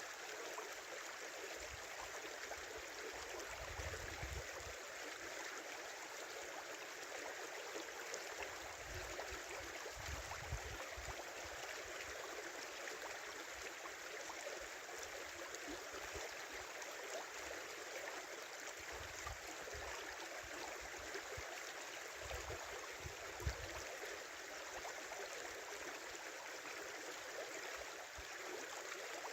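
Small winter river flowing, a steady rush and babble of water, with a few brief low rumbles underneath.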